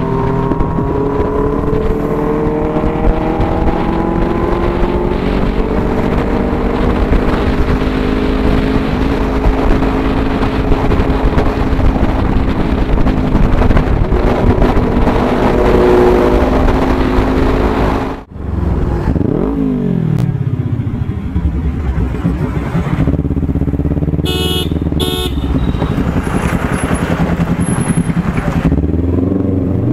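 A Kawasaki Z900 inline-four and a Ninja 300 parallel twin with aftermarket exhausts running at steady road speed, their engine note slowly sinking. After a sudden cut about two-thirds of the way in, the engines are heard at low speed with revs rising and falling.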